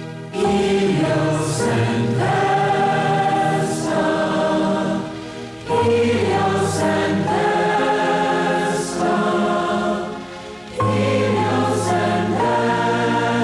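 Congregation singing a short mantra to Helios and Vesta in unison over a keyboard, the same phrase starting afresh about every five seconds.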